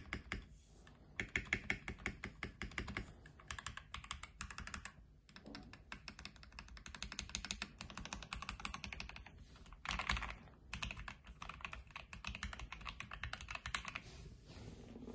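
Computer keyboard being typed on fast: runs of rapid key clicks broken by short pauses, with one louder clack about ten seconds in.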